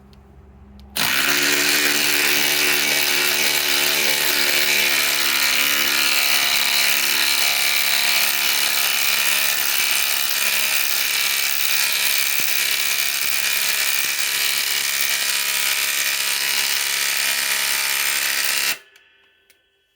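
DeWalt DCF840 cordless impact driver driving a 5 to 6 inch lag screw into wood. It starts about a second in, runs at a steady rapid rattle for about eighteen seconds, then stops.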